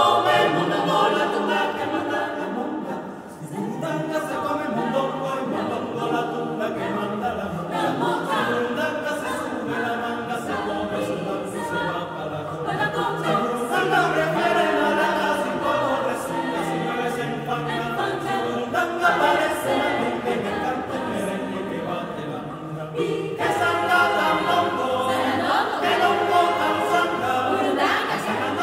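Mixed choir of men's and women's voices singing a cappella in several parts, dipping briefly about three seconds in and growing fuller near the end.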